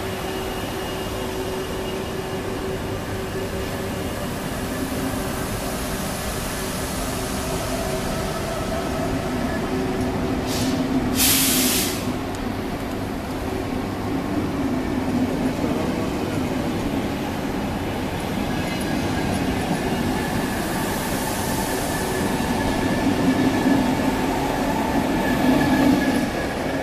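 VR Pendolino (Sm3) electric tilting train moving along the platform, its wheels rolling and electric drive humming with several steady tones, growing louder toward the end. A short loud hiss about ten seconds in.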